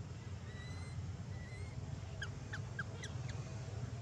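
A few short, high, falling squeaks from a small animal, bunched together about two to three seconds in, after a faint thin high tone, over a steady low rumble.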